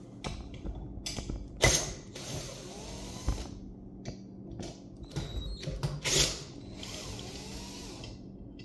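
Drill with a socket adapter undoing the muffler bolts on a Poulan 2150 chainsaw: short runs of the drill with clicking and rattling of the socket on the bolts, the two loudest about 1.7 s and 6 s in.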